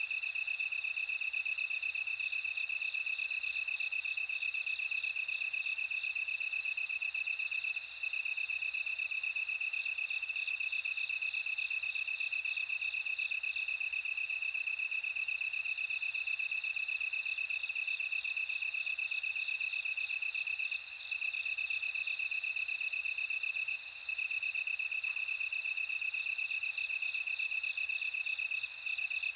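Several crickets singing together, Japanese bell crickets among them. One steady pulsing trill runs throughout, a higher ringing song comes in long bouts, and a faint high chirp repeats about once a second.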